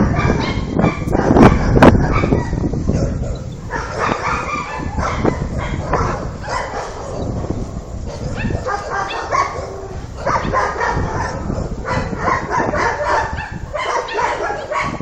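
Repeated pitched animal calls in bouts of a second or two, over a steady low rumble, with knocks and rumbling on the microphone in the first couple of seconds.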